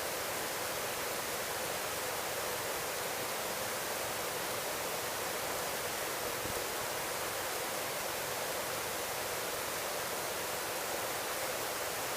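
Helicopter cabin noise in steady cruise flight, picked up through the intercom headset microphone as an even hiss with little low rumble.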